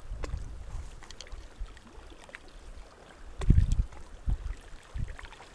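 Low rumbling buffets of wind on a body-worn camera microphone, the strongest about three and a half seconds in, over faint water lapping against a rocky shore.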